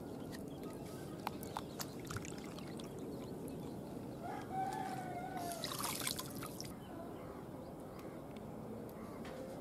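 A rooster crows once, for about a second, near the middle. Just after it comes a brief rush of water splashing and pouring as a plastic scoop lifts azolla from a shallow pond.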